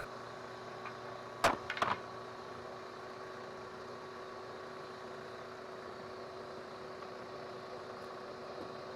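Steady electrical hum with a couple of sharp knocks about a second and a half in, like a tool or piece of wood being handled.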